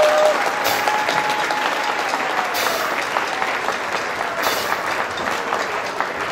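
Applause from a hall audience and the choir on stage: steady, dense hand-clapping.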